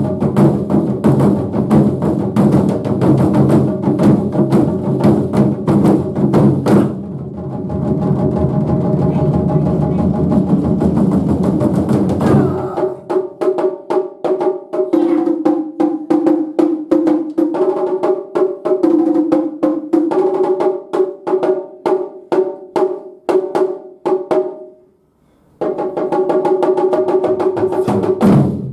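Japanese taiko drums played by an ensemble: fast, dense drumming, falling into a sustained low drum roll about seven seconds in, then rapid strikes again. The drumming stops briefly near the end and resumes at full force.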